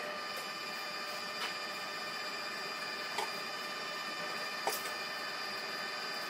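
Steady electric whine of a coal forge's air blower keeping the fire going, with three light metallic clicks spread through it as a steel rod works the coals.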